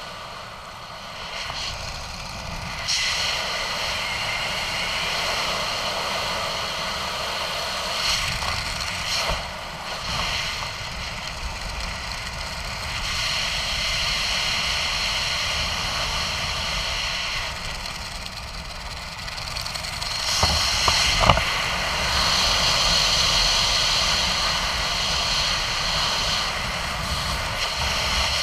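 Wind rushing over a helmet-mounted camera's microphone during a descent under an open parachute canopy. It swells and eases every few seconds, with a couple of brief knocks about three-quarters of the way through.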